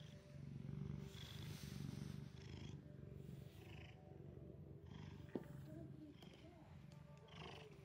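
Domestic cat purring close to the microphone: a steady low rumble that swells with each breath, about once a second. A single sharp click comes about five seconds in.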